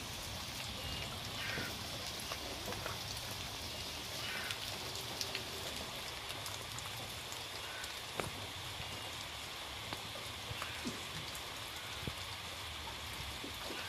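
Heavy rain falling steadily, an even hiss with many individual drops ticking sharply.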